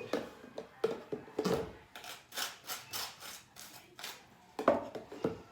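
Knife spreading mayonnaise on a toasted burger bun: a series of short, rasping scrapes, with one sharp clink of utensil on dish about three-quarters of the way through.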